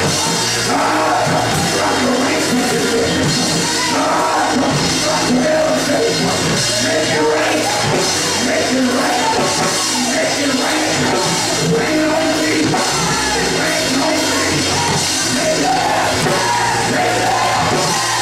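Live gospel praise music from a church band with drums and bass, with voices singing along; loud and steady throughout.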